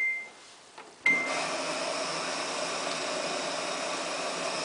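Samsung WF8804RPA washing machine in service test mode: a short beep, another beep about a second in, then the water inlet valve opens and water rushes steadily into the machine for the main wash and softener fill.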